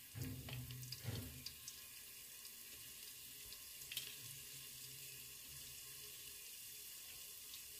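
Cumin seeds and chopped ginger frying in hot oil in an aluminium pressure cooker: a faint, steady sizzle with a few small spits.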